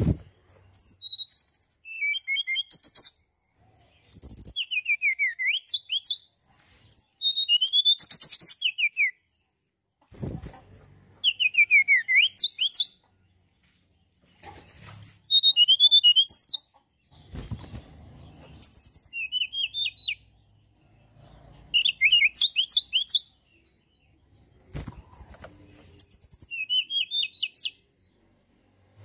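Tledekan gunung singing: repeated short phrases of rapid, high-pitched twittering with trills and downward-sweeping notes, each lasting one to two seconds, separated by pauses of about a second.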